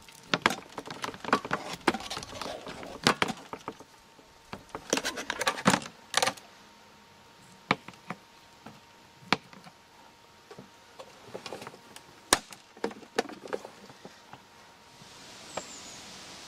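A knife cutting a block of canned luncheon meat on a plastic plate, and a plastic vegetable chopper dicing it, give irregular clicks, taps and clatters in clusters. Near the end a steady rustle of breeze comes in.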